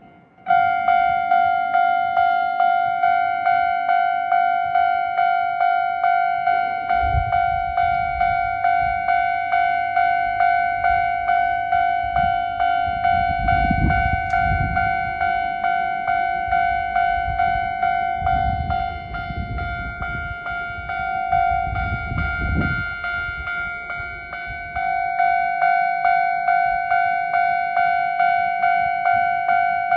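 Japanese railway level-crossing alarm starting up suddenly and clanging in a fast, even rhythm of about two to three strokes a second, the standard electronic crossing bell, ringing together with a neighbouring crossing's alarm as a train approaches. Low rumbling comes and goes under it through the middle.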